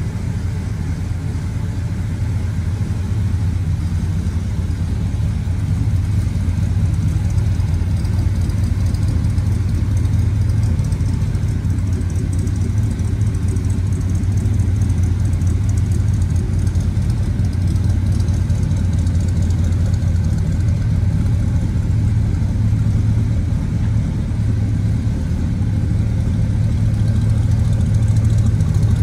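1971 Ford F-250 Highboy's engine idling steadily, a little louder near the end.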